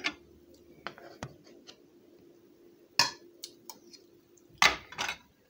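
Kitchen crockery and cutlery being handled: a few light clicks, a sharp clink about three seconds in, and a couple of louder clatters near the end, over a faint steady hum.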